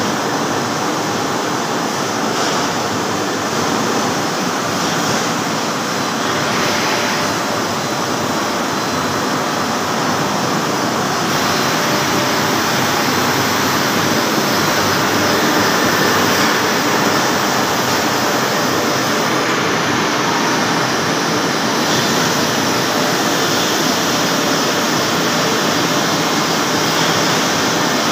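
Tirupati CNC lathe running and turning grooves in a large metal roll: a steady noise of the machine and the tool cutting metal, with chips coming off. It grows slightly louder about a third of the way in.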